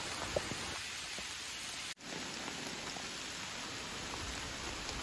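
Steady rain falling through the woods, pattering on leaves and leaf litter, with a few single drops ticking close by. The sound breaks off for an instant about two seconds in.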